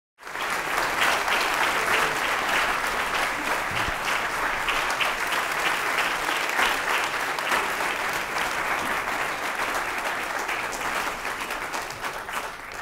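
Audience applauding: a dense, steady clatter of many hands clapping that comes in suddenly and tapers off near the end.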